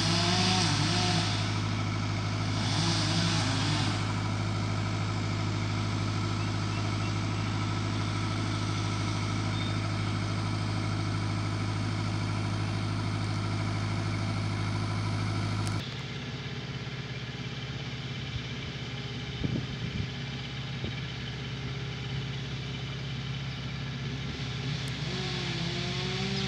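An engine running steadily at constant speed. About two-thirds of the way through, the sound changes abruptly to a quieter, lower drone.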